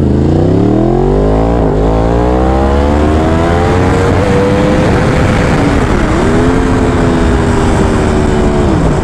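2015 Yamaha R1's crossplane inline-four engine under way: the revs climb steadily over the first few seconds, dip briefly a few times, then hold steady before dropping near the end.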